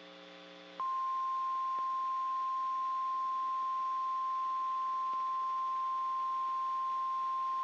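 NOAA Weather Radio warning alarm tone: a single steady 1050 Hz tone that comes in loud just under a second in, after a brief, quieter buzzy tone. It signals that an urgent weather warning follows.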